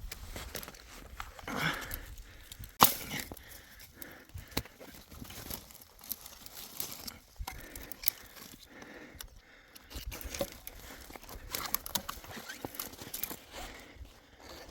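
Irregular rustling and crunching with scattered sharp clicks and knocks, the loudest about three seconds in.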